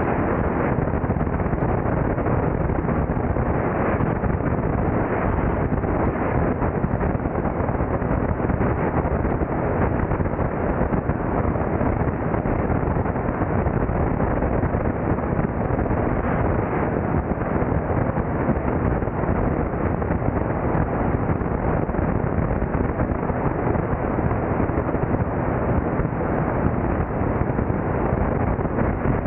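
Steady rush of wind buffeting the microphone of a camera mounted outside a Beechcraft 35-B33 Debonair in flight, with the drone of the plane's engine and propeller beneath it.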